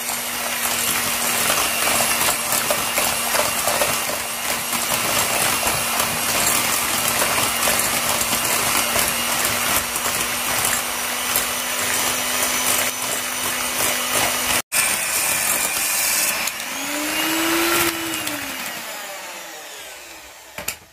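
Electric hand mixer running at a steady speed, its beaters whisking eggs and sugar in a glass bowl; near the end it slows and goes quiet.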